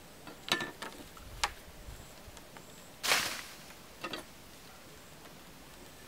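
Light knocks and creaks of bamboo slats underfoot and in handling, in two short clusters near the start and about four seconds in. About three seconds in comes a short, louder rustling swish.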